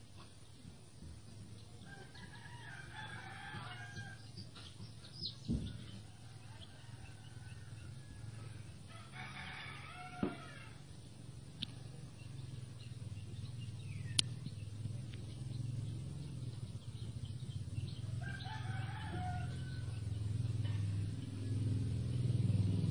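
A rooster crowing three times, each crow lasting about two seconds. A low motor hum grows louder through the second half.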